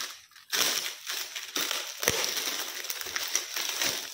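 Plastic courier mailer and its plastic wrapping crinkling and rustling as a heavily taped parcel is torn open by hand. A short pause about half a second in, then continuous crackly rustling.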